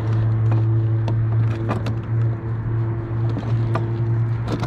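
A steady low mechanical hum throughout, with scattered short clicks and knocks from handling a freshly landed largemouth bass in a kayak.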